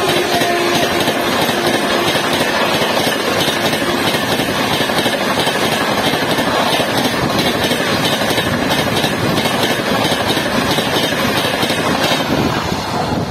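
Express train of LHB passenger coaches passing close by at high speed: a loud, steady rush of wheels on rail with rapid clatter. It eases off near the end as the last coach goes by.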